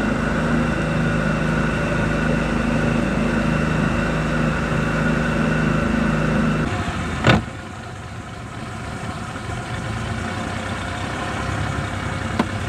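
Small boat's outboard engine running steadily, then throttled down about seven seconds in, followed by a single sharp knock and a lower, quieter engine hum.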